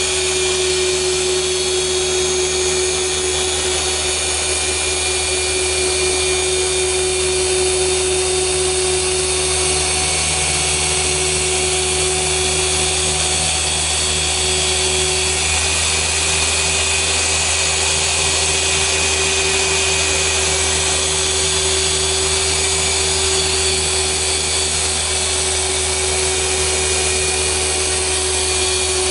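Rupes LHR15 random-orbital (dual-action) polisher running continuously with a yellow foam pad working car paint during defect correction. It gives one steady motor tone over a constant hiss, with no change in speed.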